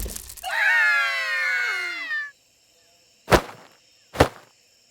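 Cartoon sound effects: a drawn-out wail slides steadily down in pitch for nearly two seconds, followed by two sharp knocks about a second apart.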